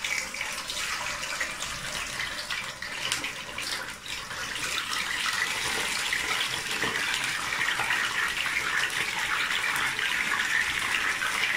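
Pieces of threadfin bream deep-frying in hot oil in a wok: a steady crackling sizzle that grows louder about five seconds in.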